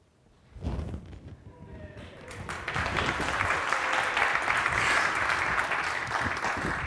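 Audience applauding, starting about two seconds in, holding steady, then dying down near the end.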